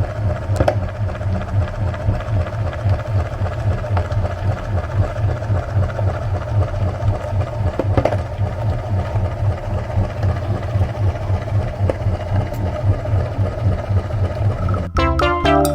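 Electric meat grinder running steadily, its motor humming with a fast buzzing rattle and a few light clicks. Music cuts in suddenly near the end.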